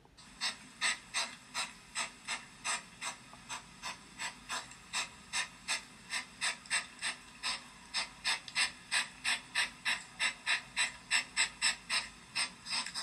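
Hedgehog huffing and puffing: a long run of short, rhythmic puffs of breath, about three a second, like a little steam train, getting slightly faster towards the end.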